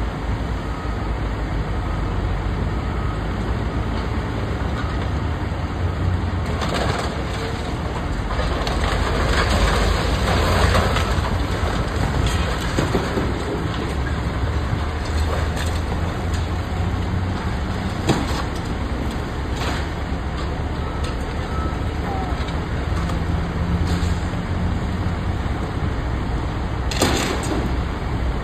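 Caterpillar high-reach demolition excavator's diesel engine running steadily under hydraulic load, while its crusher jaws break concrete and debris from an upper floor. The crunching and breaking swells for a few seconds from about seven seconds in, there is a sharp knock about eighteen seconds in, and another burst of breaking comes near the end.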